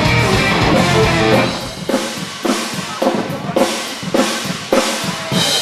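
Live music from a folk-rock band playing with drums, guitar and violin. About a second and a half in, the low end drops away and drum strikes carry on at about two a second.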